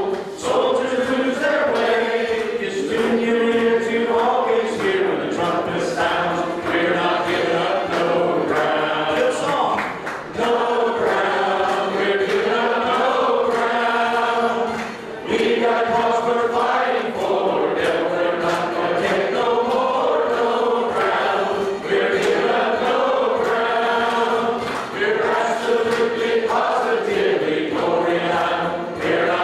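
Church congregation singing a song together, led by a man singing into a microphone, with short breaks between phrases.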